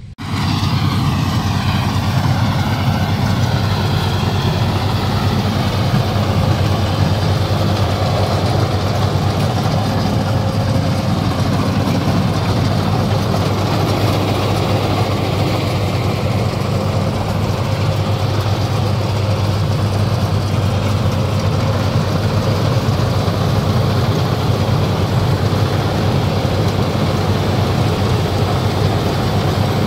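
Tracked rice combine harvester running steadily while cutting rice: a constant, loud engine drone with the clatter of the cutting and threshing machinery.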